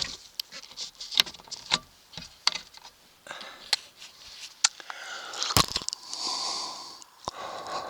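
Hands working at a vehicle roof vent while pressing self-adhesive foam onto it: scattered clicks, taps and scrapes, with one sharper knock about halfway through. Two heavy breaths through the nose come in the second half.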